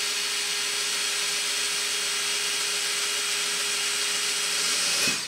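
Yellow DeWalt cordless drill running steadily with a 17/64 bit boring a hole in an aluminium transmission pan, an even motor whine at one speed. It stops suddenly at the very end.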